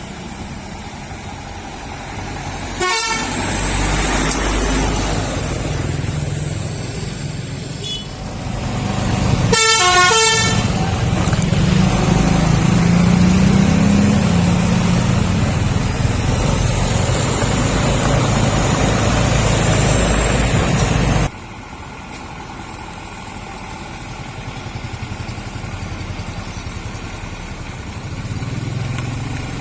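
Mitsubishi Fuso Canter ('Ragasa') dump truck's telolet air horn sounds two short, warbling multi-tone blasts, about 3 seconds and 10 seconds in, over its diesel engine. The engine runs loud, rising and falling in pitch, until it cuts off suddenly about two-thirds of the way through. After that the engine runs quieter and steadier.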